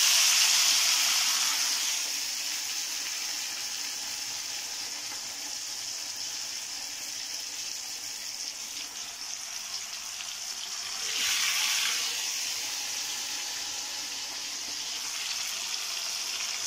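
Marinated chicken leg pieces deep-frying in hot oil in a small pan, a steady sizzle that is loudest just as the first piece goes in and swells again about eleven seconds in.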